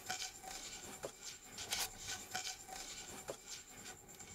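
Plastic bottle spinning on a tabletop mat, a scratchy rubbing with irregular clicks as it turns, cut off suddenly at the end.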